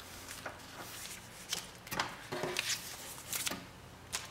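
Paper sticker sheets being handled and shuffled, with several short swishes and rustles as the sheets slide against each other and are laid down on a tabletop.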